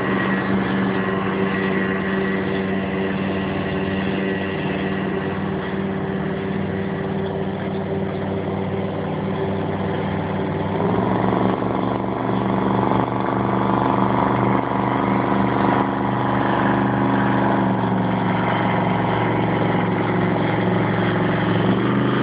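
Motorboat engine running hard during a high-speed run, a steady drone that steps up in pitch and gets louder about halfway through.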